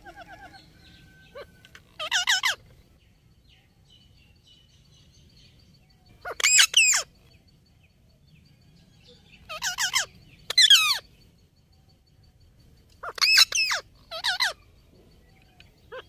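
Indian ringneck (rose-ringed) parakeets calling: about six loud calls, each about half a second long with a wavering pitch, come a few seconds apart, twice as a quick pair.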